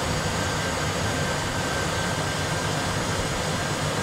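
Steady cockpit noise of an Airbus A320 full flight simulator on approach: an unchanging rush of simulated engine and airflow noise with a faint steady high tone.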